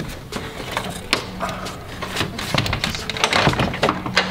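A Mishimoto aluminum radiator being worked down into a BMW E36 engine bay: a run of irregular knocks, clicks and scrapes as it bumps against the surrounding parts.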